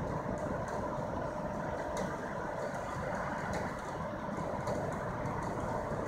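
Heavy diesel recovery equipment, tow trucks and a tracked excavator, running steadily, with a constant whine over the engine rumble and a few faint light ticks.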